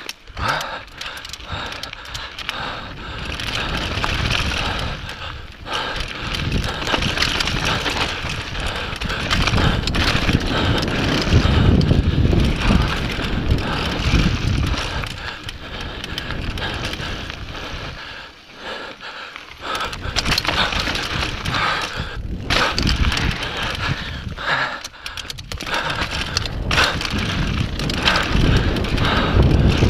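Mountain bike ridden fast down a rocky dirt trail: tyres crunching over gravel and rock and the bike rattling, a continuous rough noise that eases briefly a couple of times.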